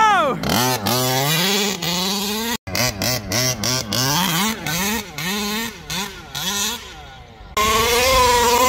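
Two-stroke petrol engine of a 1/5-scale RC truck with a tuned pipe, revved in quick blips that rise and fall in pitch, then held at a steady high rev near the end.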